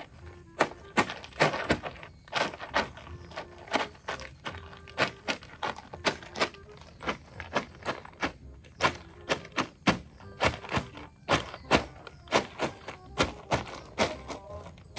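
Repeated sharp thunks from a digging tool striking into soil, about two strikes a second, keeping up an uneven working rhythm.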